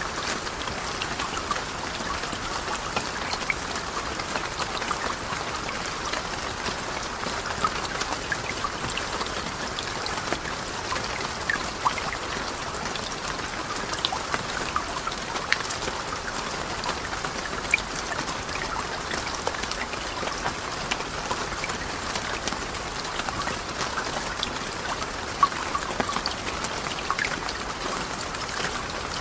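Steady rain: a dense patter of separate drops over an even hiss.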